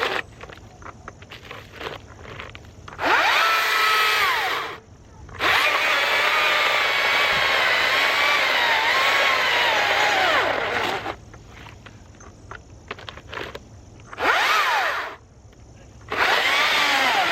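Battery-powered STIHL electric chainsaw cutting a log in four runs, the longest about five seconds in the middle. Each run is a motor whine that spins up in pitch and winds down as the saw stops. The pitch sags and wavers while the chain bites, and the saw keeps stopping under load, which the user puts down to too little power when he pushes it hard.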